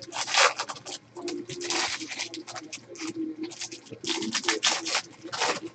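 2013-14 Panini Select basketball card pack being torn open by hand: quick, irregular crinkling and rustling of the wrapper as the cards are pulled out.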